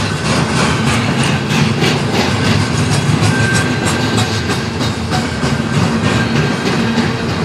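Freight train cars rolling past: a steady rumble of steel wheels on rail with repeated clicks as the wheels cross rail joints.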